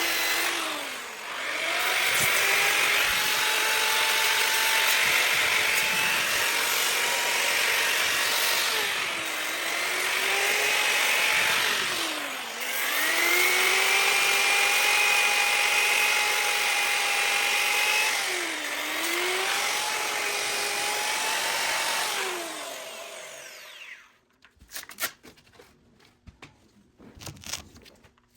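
Bauer variable-speed grinder with a sanding pad sanding a cast iron skillet: a steady motor whine that dips in pitch and recovers about five times. It stops about 23 seconds in, followed by a few light knocks.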